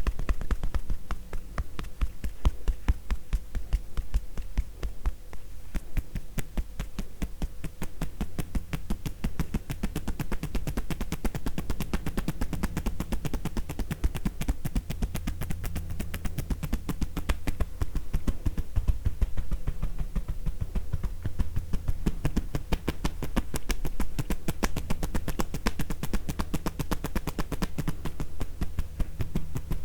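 Hands tapping rhythmically on a person's body in a tapotement (percussive) massage: a fast, steady stream of hollow, popping taps.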